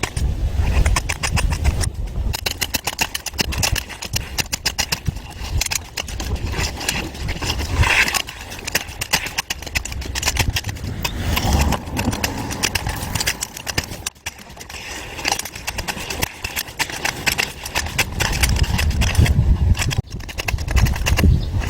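Rapid, uneven knocking, many strikes a second, from a concrete compacting tool at work.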